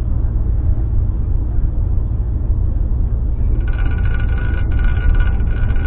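Steady low road and engine rumble heard inside a moving car's cabin. About three and a half seconds in, a higher steady tone with several pitches joins it and carries on to the end.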